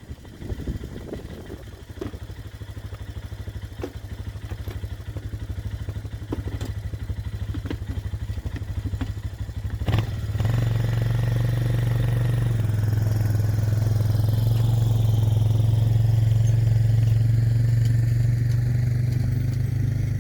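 Arctic Cat four-wheeler's engine running at low revs with some clatter. About halfway there is a clunk, then the engine holds steady at higher, louder revs as it tows the mini boat's trailer in low gear.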